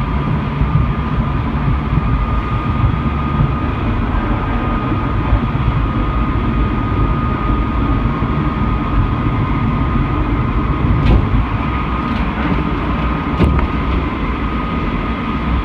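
Keisei 3700-series electric train running at speed through a tunnel, heard from just behind the driver's cab: a steady rumble of wheels on rail with a faint steady high tone over it. Two short sharp ticks come near the end.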